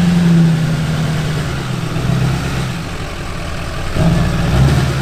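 Lifted Duramax diesel pickup's engine running at low speed while it pulls a travel trailer through a tight turn; the engine note eases off about a second and a half in and picks up again about four seconds in.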